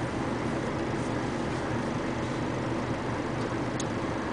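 Steady low rumble of heavy machinery at an asphalt plant loading bay, with a heavy dump truck's diesel engine idling under the silo.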